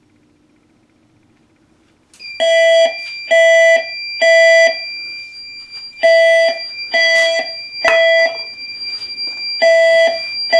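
Fire alarm system going into alarm about two seconds in, set off by canned test smoke sprayed into a smoke detector: horns sound the temporal-three evacuation pattern, three short blasts then a pause, three times over, with a steady high-pitched tone underneath.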